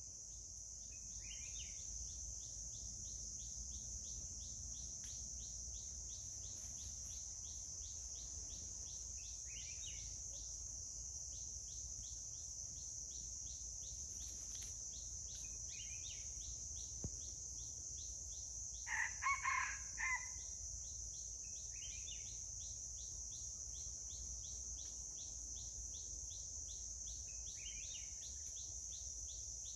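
Forest insects keep up a steady high-pitched drone with a fast, regular ticking. About two-thirds of the way through, a red junglefowl rooster gives a short crow.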